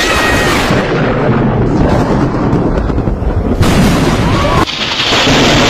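Thunder from close lightning strikes: loud, dense crackling and rumbling throughout, cutting abruptly to a harsher hiss near the end.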